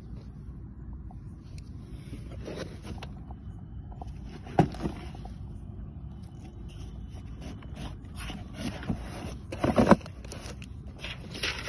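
Cardboard firework box being handled and opened on a concrete floor: scraping and rustling of cardboard, with a few sharp knocks, the loudest about four and a half seconds in and another near ten seconds.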